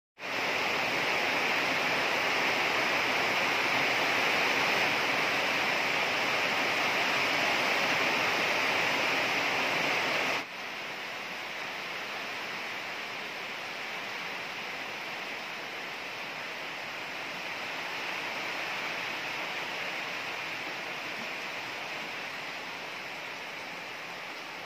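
Heavy typhoon rain with wind, a steady hiss of falling water. About ten seconds in it drops abruptly to a softer, steady rain.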